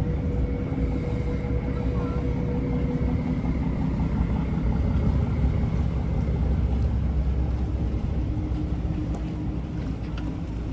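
River tour boat's engine running with a steady low rumble while the boat manoeuvres alongside a pier.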